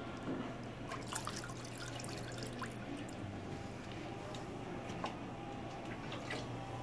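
Melted candle wax dripping and being stirred in metal dipping vats, with a few short light clicks, over a steady low hum.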